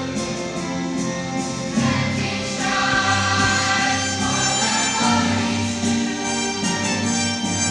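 School chorus singing with instrumental accompaniment, several voices holding sustained notes together.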